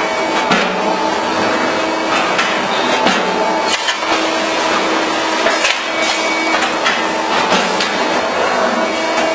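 Automatic sandpaper disc cutting press running with a steady machine hum, its die striking with a sharp knock about every two and a half seconds as it punches discs from the sandpaper.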